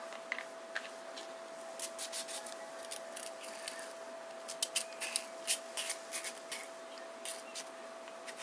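Emery board filing the top of a plastic bottle cap to roughen it: a run of short, irregular scratching strokes, the louder ones coming in the middle.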